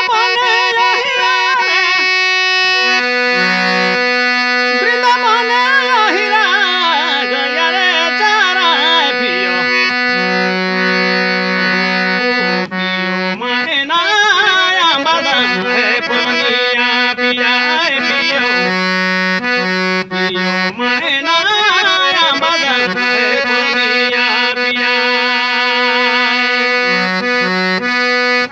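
Folk-song music: long held drone notes under an ornamented melody line that bends and wavers, with a brief break about thirteen seconds in.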